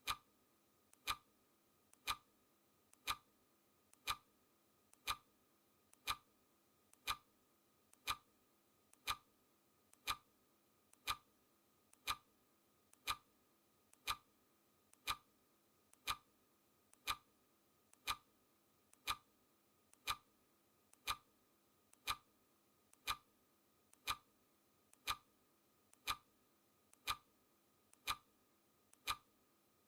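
Clock ticking steadily, about once a second, each loud tick led by a fainter click.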